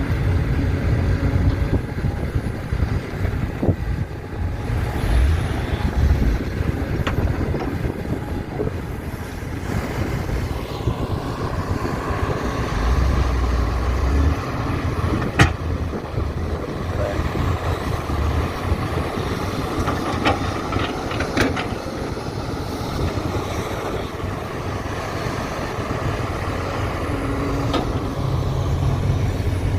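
Diesel engines of an excavator and dump truck running under load, with a whine that rises and falls in the middle, and a sharp knock about halfway through.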